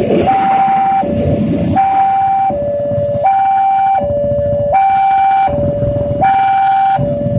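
Electronic railway level-crossing warning alarm sounding a two-tone high–low pattern, each tone held about three-quarters of a second, over a low rumble. The alarm stops near the end.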